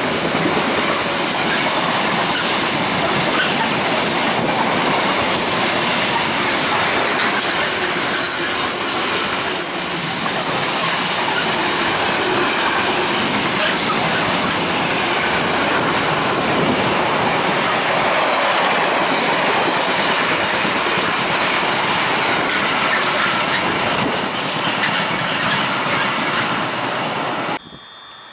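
Container wagons of a Freightliner intermodal freight train, hauled by a Class 66, passing at speed. A steady, loud rush of wheel and wagon noise cuts off abruptly near the end.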